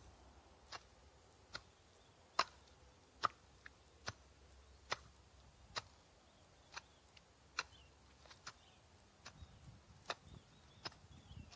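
Small pick-mattock chopping into grassy soil: about a dozen sharp strikes, evenly paced at a little under one a second.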